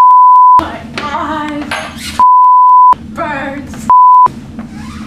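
Three loud steady 1 kHz censor bleeps, the last one shorter, each blanking out the soundtrack. Between them a voice is heard.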